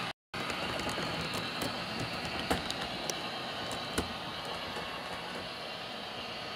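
Roco H0-scale TEE Edelweiss RAm diesel railcar model running along the track: steady rolling and motor noise with light clicks of wheels over rail joints and two sharper clicks a second and a half apart, easing off slightly as the train moves away. The sound cuts out for a split second just after the start.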